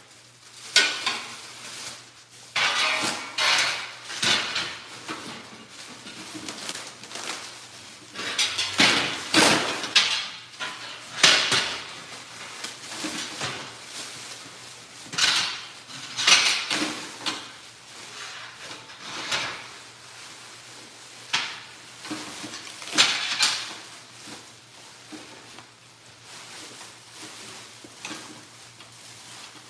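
Irregular metallic clanks, knocks and rattles as a steel shipping crate frame is taken apart around a boxed minibike, over a faint steady low hum.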